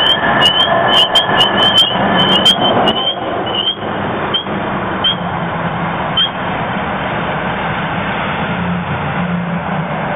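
Security camera microphone picking up a car engine running low, with a steady hum that grows firmer in the later seconds as the vehicle comes closer. Many short high chirps and clicks sound in the first three seconds, then a few more until about six seconds in.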